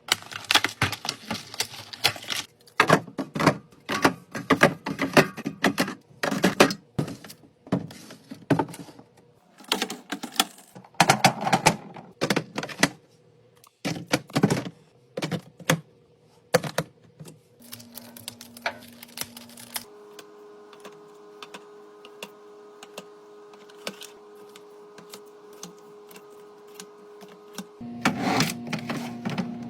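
Quick clacking and knocking of hard plastic and glass items, such as containers, lids and bottles, being handled and set down while a fridge is restocked. It stops about two-thirds of the way through, a steady hum with several pitches holds for several seconds, and the clatter returns near the end.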